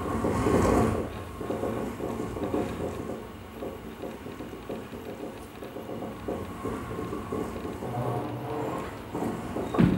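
Two dancers' bodies scuffing, sliding and knocking on a dance floor: an irregular stream of soft taps and rustles, louder in the first second, with one sharper knock near the end.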